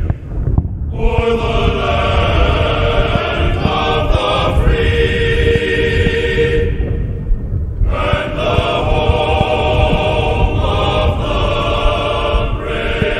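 Choral music with long held sung chords, breaking off briefly near the start and again about seven seconds in. Under it runs a low rumble with a few dull thumps from the fireworks.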